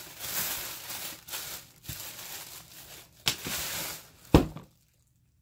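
Crinkling, rustling packaging being handled, with a few sharp knocks as the box is moved, the loudest about four seconds in; the sound then cuts off abruptly.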